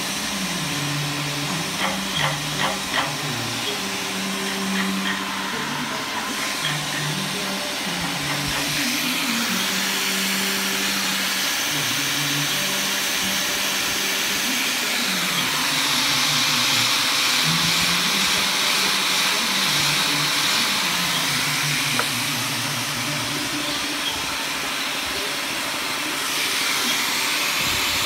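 Electric angle grinder with a sanding disc running and sanding a wooden cabinet, a steady whirring hiss. It grows louder and brighter about halfway through.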